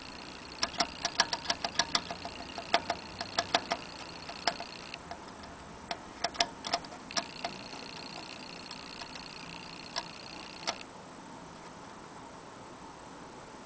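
Hamster drinking from the metal sipper tube of a cage water bottle, licking at the spout so it gives sharp ticking clicks. The clicks come several a second for the first few seconds, then in a short burst about six seconds in, then twice more, singly, near the end.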